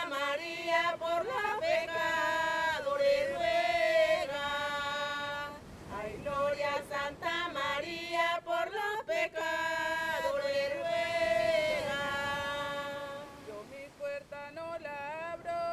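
An alabao, the traditional Afro-Colombian chant of the Chocó, sung unaccompanied: voices holding long, drawn-out notes with sliding ornaments, easing off near the end.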